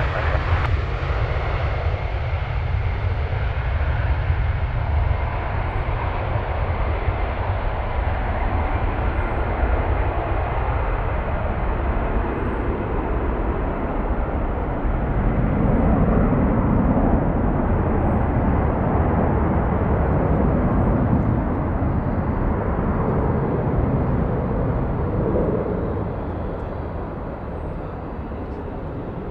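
Jet engines of an Airbus A320-family airliner at take-off power as it lifts off and climbs away: a continuous rushing noise that swells to its loudest in the middle. It then fades near the end, losing its hiss as the aircraft draws away.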